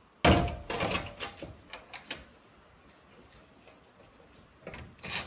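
A run of clicks and knocks from hand work on the car's stripped front end, starting with a loud one just after the start and dying away about two seconds in. After that it stays quiet apart from some faint noise near the end.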